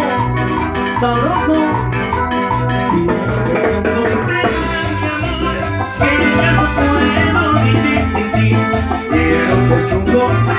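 Live Latin tropical dance band playing through a PA: electric bass and percussion keep a steady beat under keyboard and melodic lines.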